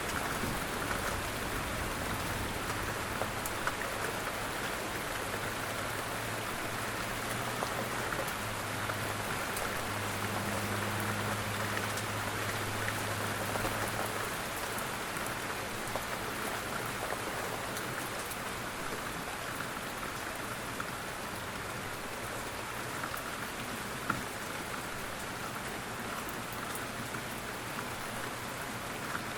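Steady rain falling, a dense even patter, with a low rumble underneath that fades out about halfway through.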